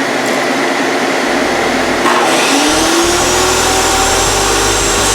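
DeWalt DW744 table saw running at speed with the loud whine of its motor and blade; about two seconds in the pitch dips and climbs back and a low rumble joins as the blade takes a short cut into the sled's plywood base.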